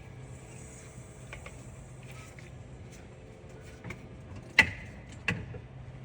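Two sharp metallic knocks a little past halfway, with a fainter click just before them, from tools and parts being worked on a small-block Chevy's distributor and crank. A steady low hum runs underneath.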